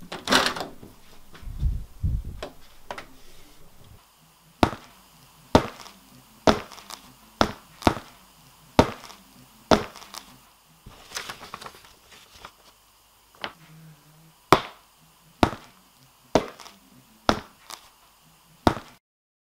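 Foley footsteps: sharp, evenly paced steps, roughly one a second, after an opening clatter with a couple of low thumps. There is a brief papery rustle around the middle.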